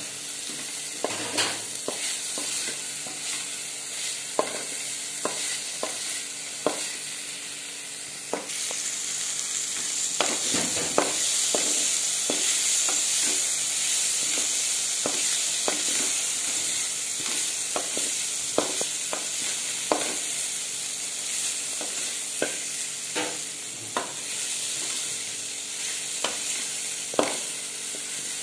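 Chopped onions, tomatoes, green chillies and curry leaves sizzling in oil in an iron kadai as they sauté, with a spatula stirring and scraping and tapping sharply against the pan many times. The sizzle grows louder about eight seconds in.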